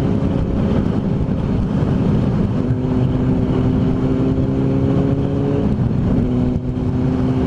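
Honda CBR600RR sport motorcycle's inline-four engine running at a steady cruise, with heavy wind rush on the helmet microphone. The engine note breaks briefly about six seconds in, then carries on at a similar pitch.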